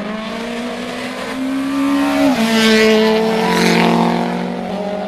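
Rally car accelerating hard on a special stage: the engine note climbs, drops sharply at a gear change a little over two seconds in, then climbs again. It is loudest as the car passes close by and eases off near the end.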